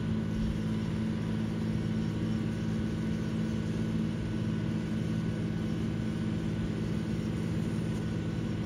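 Tractor engine running at steady revs under load, towing a livestock trailer stuck in deep mud on a chain.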